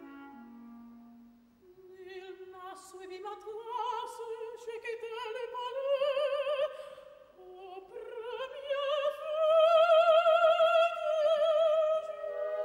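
Operatic soprano singing in French with wide vibrato, sparsely accompanied: two rising phrases, the second climbing to a long held high note. A woodwind line descends and fades out just before her first phrase.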